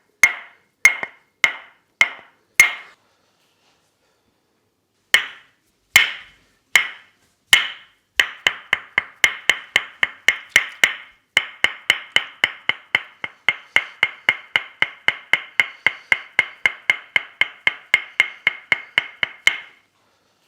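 Tok Sen massage: a wooden mallet tapping a wooden wedge, each tap a sharp wooden knock with a short ring. A few spaced taps and a pause of about two seconds, then slower taps, then a fast steady run of about three taps a second that stops near the end.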